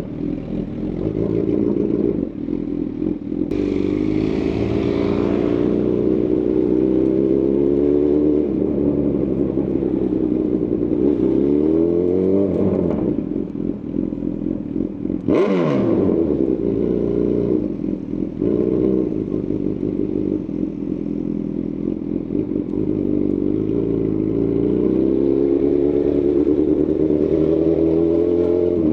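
2018 Honda CB1000R's inline-four engine through a Lextek CP1 full aftermarket exhaust, ridden on the road. It revs up and drops back repeatedly as the rider accelerates through the gears and rolls off the throttle, with a quick sharp swing in revs about halfway through.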